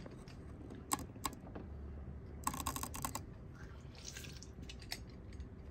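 Hand-held lime squeezer clicking and clacking as limes are pressed in it: a couple of single clicks about a second in, a quick run of clicks about two and a half seconds in, and a few more near the end.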